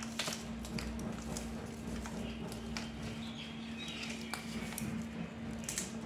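Parakeet's beak biting and cracking an areca nut held in its foot: irregular sharp crunching clicks, over a steady low hum.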